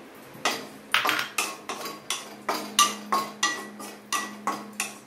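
Wooden spatula knocking and scraping against a metal non-stick kadai while stirring cashews and raisins frying in ghee, about three strokes a second. It starts about half a second in, and each knock leaves a short metallic ring.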